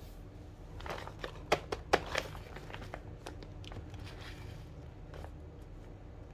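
Hands handling a toy set's plastic packaging: a quick run of crinkles and sharp clicks about a second in, then a few scattered lighter clicks, over a low steady hum.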